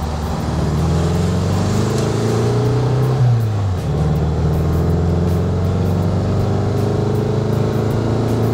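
Air-cooled VW Beetle flat-four engine accelerating through the gears, heard from inside the car. The revs climb, drop with an upshift about three and a half seconds in, then climb steadily again. It is running on a freshly fitted vacuum-advance distributor with electronic ignition and a new carburetor.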